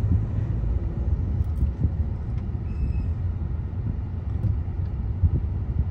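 Steady low rumble of a car's engine and tyres heard from inside the moving vehicle. A faint short tone sounds about three seconds in.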